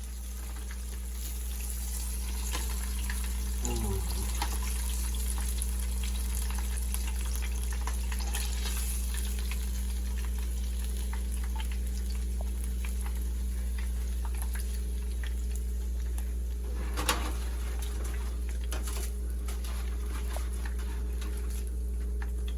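Flour-dusted chicken wings deep-frying in hot oil, a steady sizzle over a low hum. A single sharp knock about three-quarters of the way through.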